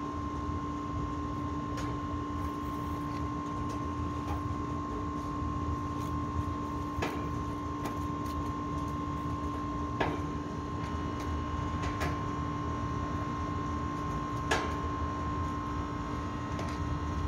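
A steady machine hum of two constant tones over a low rumble, broken by a handful of sharp metallic clicks and taps from tools on the air-conditioner's copper piping.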